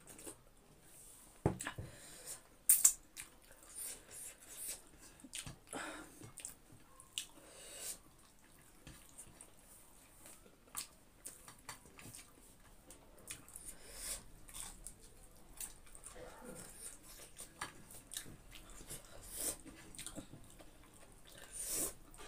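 Close-miked eating: slurping dal from a bowl, then chewing with wet mouth smacks and eating with the fingers. A few sharp knocks stand out in the first three seconds.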